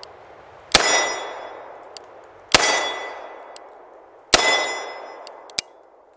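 Three shots from a Smith & Wesson Model 19 Carry Comp .357 Magnum revolver with a ported (compensated) barrel, a little under two seconds apart. Each shot is followed by a ringing clang that fades over about a second and a half, as a steel target is hit.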